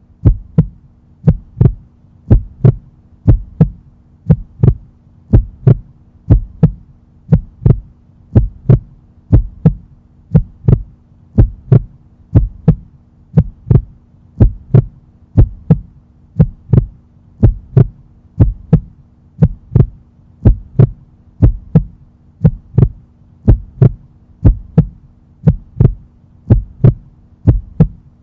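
Heartbeat sound effect: a steady, evenly paced thumping pulse about one and a half beats a second, over a low steady hum.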